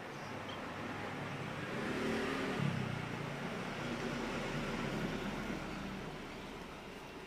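A motor vehicle passing by: engine and road noise build to a peak about two and a half seconds in, then fade away.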